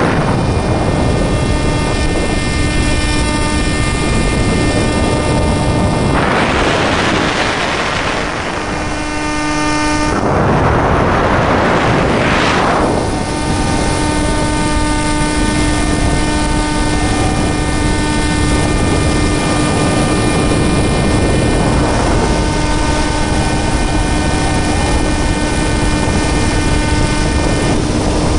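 Electric motor and propeller of an RC plane in flight, heard from on board: a steady whine with many overtones over heavy wind rush on the microphone. Two louder surges of wind noise come about 6 and 10 seconds in, and during the second the motor whine drops away for a couple of seconds before returning.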